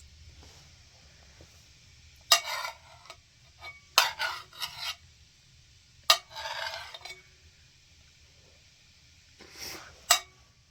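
Four short bursts of scraping or rubbing, each opening with a sharp click, spread between about two and ten seconds in.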